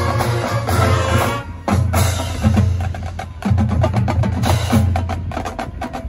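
High school marching band playing: sustained brass chords for about the first second and a half, then a percussion passage of sharp drum and block hits over held low notes.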